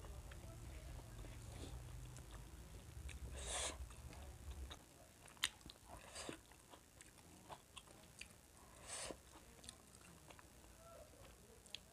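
Close-miked chewing and lip smacks of a person eating rice and curry with her fingers, with scattered sharp mouth clicks. A low background hum stops about a third of the way in.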